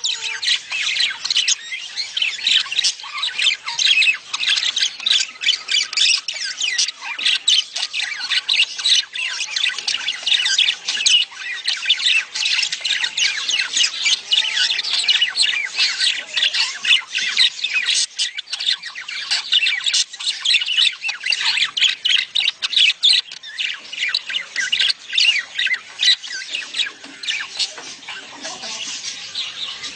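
A flock of budgerigars chattering and squawking together in a dense, continuous stream of short, rapid calls: budgie mating-season chatter.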